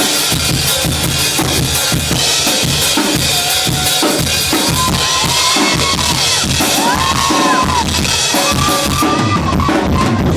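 Full drum kit played loud for a sound check, with bass drum, snare and cymbals hit together in a run of dense strokes.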